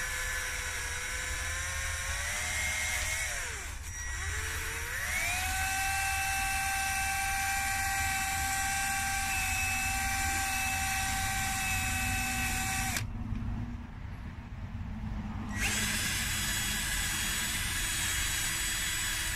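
Ridgid cordless drill spinning a small wire wheel brush against a brake caliper slider pin to scrub off rust. The motor whine rises, sags away briefly and spins back up to a steady speed. It stops for a couple of seconds, then starts again.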